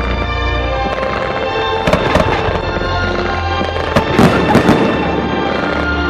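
Aerial fireworks going off, with a few sharp bangs about two seconds in and a louder cluster of bangs about four seconds in, over music playing throughout.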